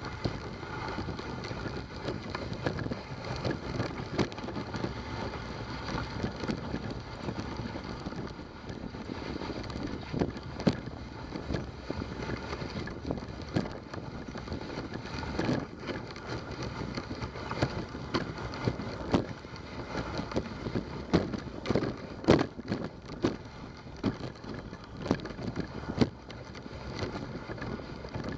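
Dog sled moving along a snowy trail: a steady scraping hiss of the runners over the snow, with frequent sharp knocks and clicks from the sled, a few of them louder, and some wind on the microphone.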